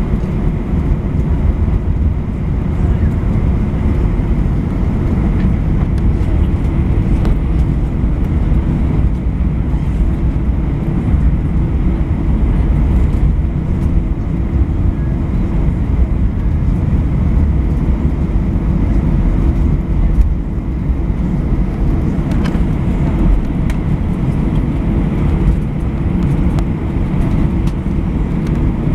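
Cabin noise of an Airbus A320 taxiing: a steady low rumble from the engines at taxi power, with a faint steady hum and a few light clicks.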